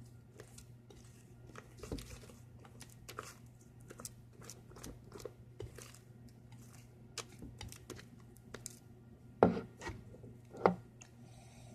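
Fluffy slime (glue, shaving foam and activator) being stirred in a bowl, giving quiet irregular wet crackles and clicks, with two louder knocks near the end.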